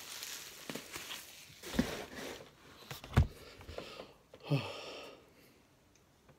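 Plastic wrapping crinkling as VHS tapes are handled and unwrapped, with a few knocks and one sharp thump about three seconds in. A short low vocal sigh or grunt follows a second later.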